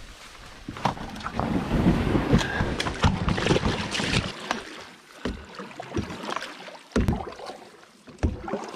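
Loaded canoe being pushed off and paddled: water splashing and rushing along the hull for a few seconds, then several separate short knocks as the paddle works.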